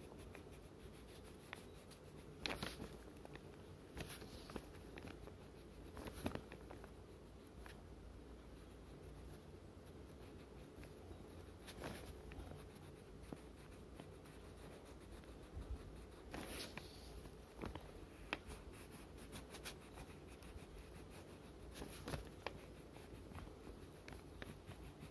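Faint, intermittent scratching of a wax crayon being rubbed on paper: short strokes now and then, over a low steady hum.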